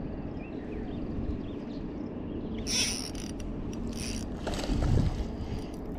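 Spinning fishing reel being cranked to retrieve line, its gears whirring in a few short spells, over a steady low rumble of wind on the microphone.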